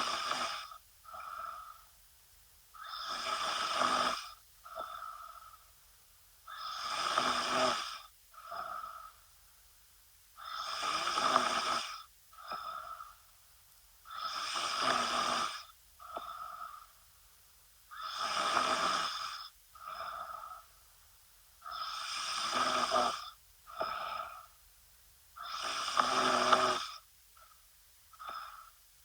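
A woman snoring in her sleep: a long loud snore about every four seconds, each followed by a shorter, softer breath sound, in a steady rhythm.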